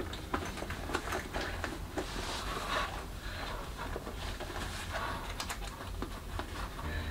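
Rustling and soft rubbing of a foam yoga mat being pushed by hand into its fabric carry case, with scattered small clicks and scrapes.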